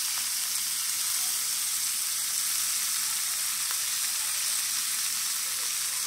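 Raw bacon, sliced onion and green bell pepper sizzling in a hot nonstick frying pan, a steady, even hiss. The bacon is still raw: the frying has just started.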